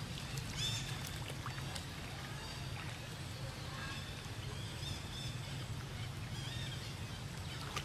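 Steady low outdoor rumble with a few faint, short high chirps that bend up in pitch, about half a second in, around four seconds and again past six seconds.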